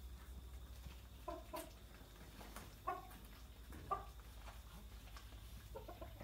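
Several short pitched animal calls, each a fraction of a second long, coming about a second apart over a steady low hum.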